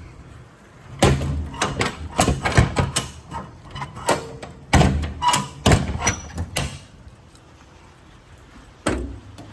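A quick run of metal clanks and bangs, then a single knock near the end: the steel compartment doors and latches of a truck service body being worked.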